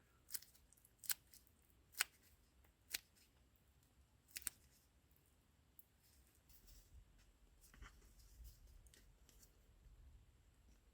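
Faint sharp clicks and taps of small hard objects being handled during resin and hardener mixing, about one a second for the first four or five seconds, then a faint low rumble with a few light ticks.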